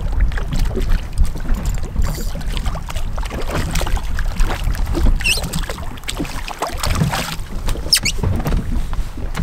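Wind rumbling on the microphone on a small boat at sea, with scattered knocks and clicks and two brief high squeaks, one about five seconds in and one about eight seconds in.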